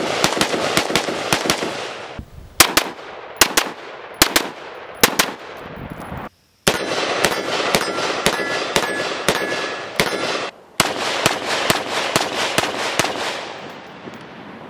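AR-15 rifles in 5.56/.223 fired from the shoulder in fast semi-automatic strings, with a slower run of single shots in between, the strings broken off abruptly at cuts. The first strings come from a carbine-length gas system carbine; the last, near the end, from a 16-inch barrel with a rifle-length gas system.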